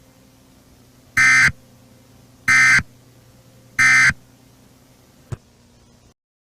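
Emergency Alert System end-of-message data tones: three short buzzing data bursts about a second apart, marking the end of the alert. A single click follows, and a faint low hum runs underneath.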